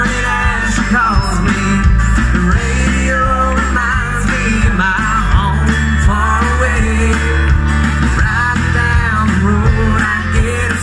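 Live amplified band: a woman singing lead over electric and acoustic guitars and drums, playing a rock-style song with a steady beat.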